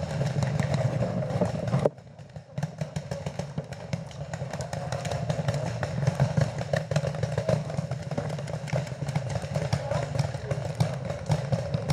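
Paintball markers firing: many sharp pops in irregular strings over a steady low rumble, with a brief lull about two seconds in.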